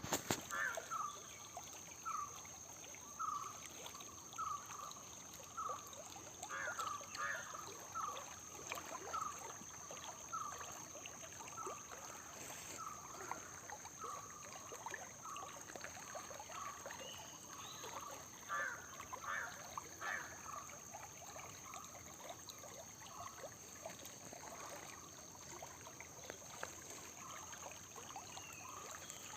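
Water trickling and flowing steadily. Over it, a bird repeats a short chirp about one and a half times a second, stopping about two-thirds of the way through, and a faint steady high-pitched tone runs underneath.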